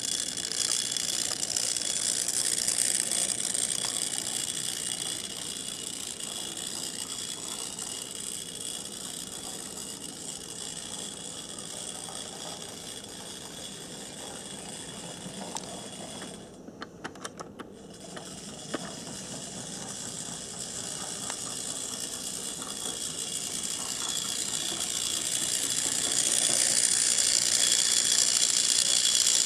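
HO-scale electric switcher locomotive model running along its track, its small motor and gears whirring steadily. It is louder near the start and end, and there is a short run of clicks about two thirds of the way through.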